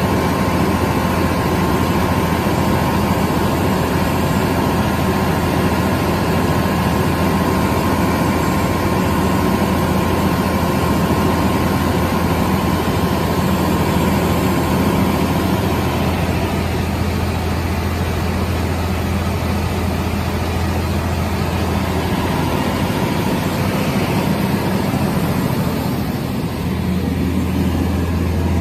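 Fire engine's diesel engine running steadily, driving its 2000 GPM Waterous fire pump under test. It gives a loud, even hum, with a higher tone that fades a little past halfway.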